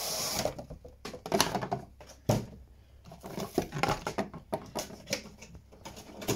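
Cardboard toy packaging and a clear plastic tray being handled and unpacked: irregular rustling and scraping with several sharp knocks.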